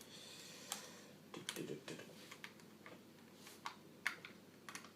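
Light, irregular clicks and taps of plastic laptop casing parts being handled and worked loose.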